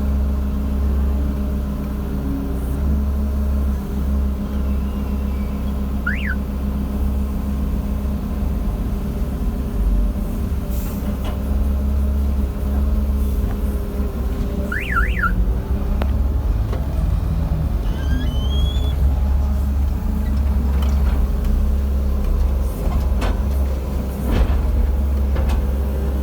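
JCB JS160 excavator's diesel engine running steadily with a deep drone, with a few short high chirps about six and fifteen seconds in.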